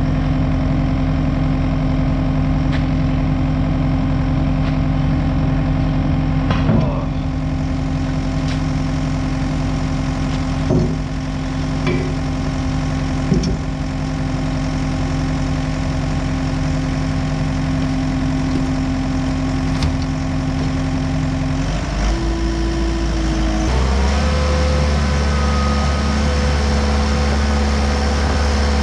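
Diesel engine of a Komatsu skid steer running steadily at low speed, with a few short knocks and rattles. About 22 seconds in it steps up in speed, then steps up again to a higher throttle about two seconds later.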